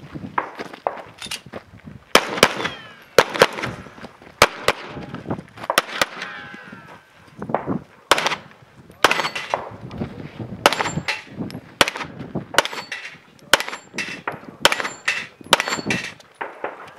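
Gunshots fired in a 3-gun competition stage, a long irregular string of sharp reports, often in quick pairs, several shots close together at times. Some shots are followed by a brief ringing tone, likely a steel target being hit.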